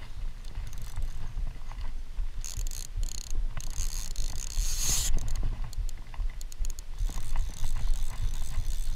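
Fly reel's click-and-pawl ratcheting as line is wound in on a hooked fish being played, over a steady low rumble. Brief hissing bursts come about three and five seconds in.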